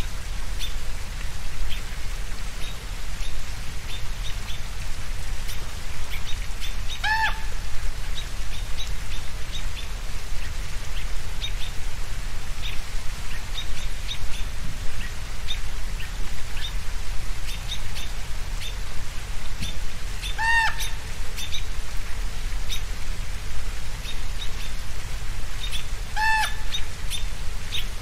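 Birds chirping steadily, with three louder, clearer calls: one about a quarter of the way in and two in the last third. A low steady rumble runs underneath.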